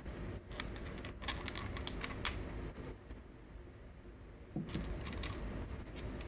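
Light metallic clicks and taps as engine parts are handled and a small gear is fitted beside the clutch basket of a Honda CR85R two-stroke engine, in two clusters: one from about half a second to two seconds in, another around five seconds in.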